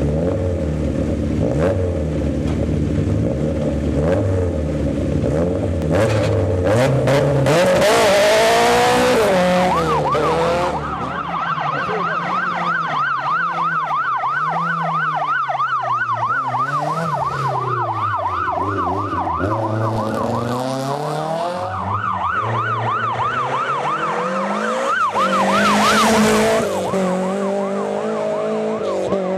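A rally course car's siren warbling fast over car engines, with the siren coming in about a third of the way through. Before it, and again near the end, a car's engine rises and falls in pitch as it passes close by.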